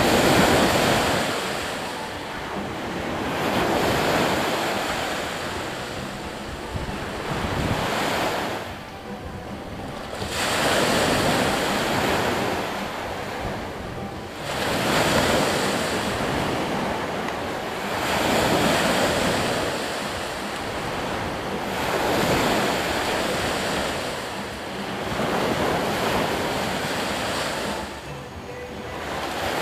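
Waves breaking on a beach, each surge swelling and then falling away every three seconds or so.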